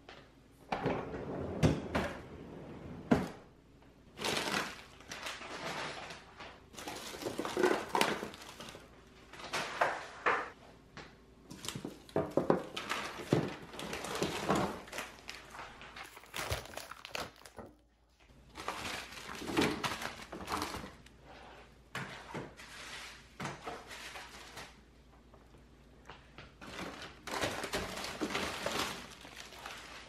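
Frozen food being taken out of a freezer: plastic packaging crinkling and rustling in irregular bursts, with packages and containers set down in sharp thunks, and a freezer drawer being pulled open.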